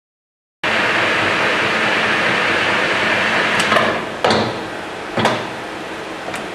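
Metal lathe turning a taper, a steady rushing cutting noise that starts abruptly. About four seconds in it drops to a lower level, with several sharp clicks from the levers, and it comes back loud right at the end.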